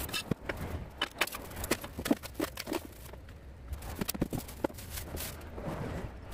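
Packaging handled while an oven-type air fryer is unboxed: cardboard flaps, styrofoam packing and a plastic bag rustling and crackling, with scattered knocks and bumps as the appliance is lifted out and set down on a wooden table.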